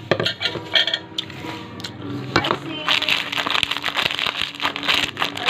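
Eating sounds: cutlery clinking on a plate and chewing, with many short clicks, over background music and voices.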